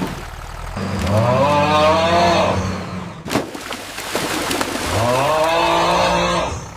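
Cartoon tractor engine revving up twice and holding at high revs as the tractor struggles stuck in mud.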